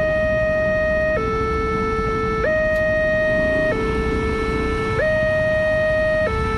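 Railway level-crossing warning alarm sounding a two-tone hi-lo signal, switching between a higher and a lower tone about every second and a quarter. It warns that a train is approaching and the barriers are down. A steady low rumble runs underneath.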